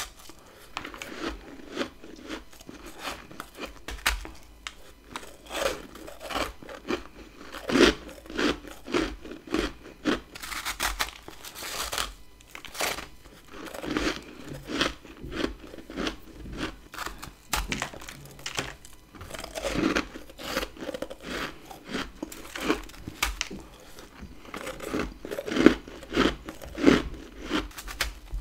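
Close-up crunching bites into frozen humidifier frost (freezer frost ice), a steady run of crisp crunches about one or two a second with chewing in between.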